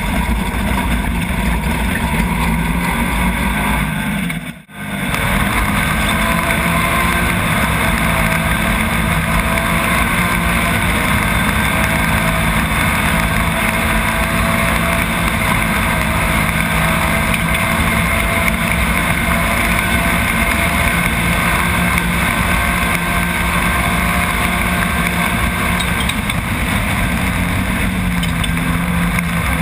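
Nissan VQ35 V6 engine of a Chenowth off-road racing buggy running hard at a mostly steady pitch, heard from inside the cockpit, with wind and gravel noise over it. A brief dropout about four and a half seconds in.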